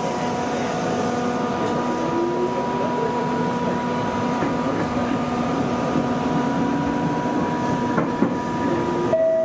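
Electric commuter train running along the line: wheel and track rumble under a steady whine from the traction motors and gears, with lower tones that rise slowly in pitch.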